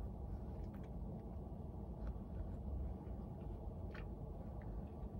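Steady low hum inside a car cabin, with a few faint soft clicks from chewing food.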